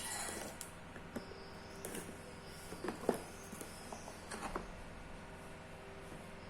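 Hands peeling packing tape and handling a cardboard box: faint scattered clicks, crinkles and rustles, the sharpest click about three seconds in.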